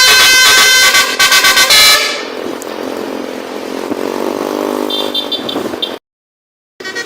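Bus telolet horn, a multi-tone musical horn, playing its quick tune loudly for about two seconds, then cutting off into quieter road noise. The sound drops out completely for a moment near the end.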